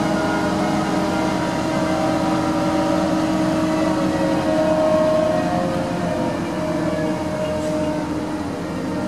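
Liebherr LTM1350-6.1 mobile crane's diesel engine and hydraulics running steadily under load while it holds and slews a suspended steel staircase, with a whine of several held tones that shift slightly in pitch over a low rumble.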